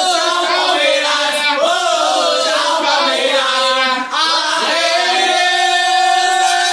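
A group of voices singing a chant together, with long drawn-out notes.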